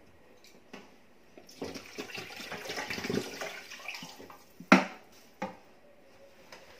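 Water poured into a hot cooking pot that chicken was just fried in, splashing and hissing for two to three seconds as it hits the hot base and sends up steam. A sharp knock follows about a second later, then a smaller one.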